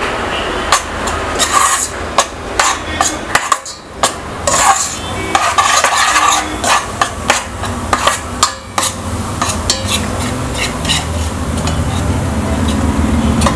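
Metal spoon stirring and scraping thick peanut butter in a stainless steel pot, with frequent irregular clinks of the spoon against the pot. The peanut butter is being heated and kept moving so it loosens without burning.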